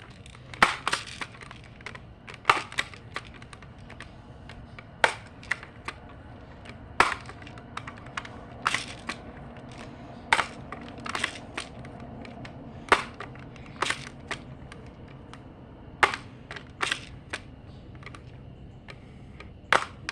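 Pump-action BB gun being handled: a long run of sharp mechanical clicks and snaps, often in pairs a fraction of a second apart, at irregular intervals.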